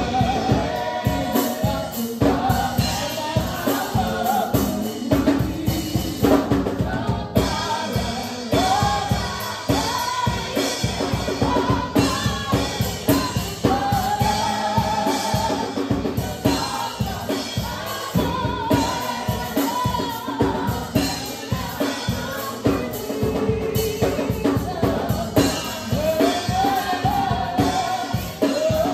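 Live gospel worship song: a female lead singer with a small group of backing singers, all on microphones, singing over a drum kit keeping a steady beat.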